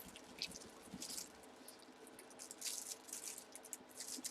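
Faint, scattered rustling and light clicks of packaging and objects being handled, over a low steady hum.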